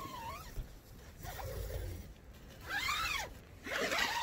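Door zipper of a Backcountry Xanadu 2P tent being pulled open in a few quick strokes, each a short buzz that rises and falls in pitch with the speed of the pull.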